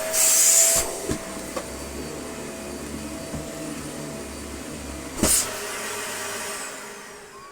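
Dyson Small Ball Allergy upright vacuum cleaner switched on and running, pretty noisy: a loud high rush of air for the first second, then steady running with a thin whine. There is a sharp knock about five seconds in, and near the end it is switched off and the motor starts to wind down.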